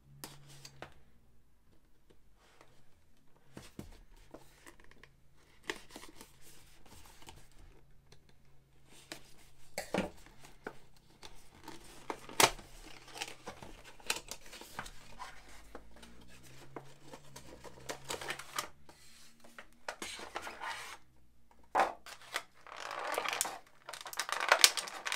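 Action-figure box being opened by hand: scattered clicks, scrapes and rustles of the cardboard box and plastic tray being worked free. Near the end comes a louder, denser crinkling of the clear plastic bag and tray as the figure is taken out.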